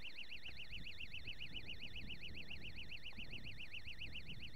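Electronic bite alarm on a fishing rod sounding a steady, fast-warbling high-pitched tone, about seven wobbles a second, signalling a fish pulling on the line.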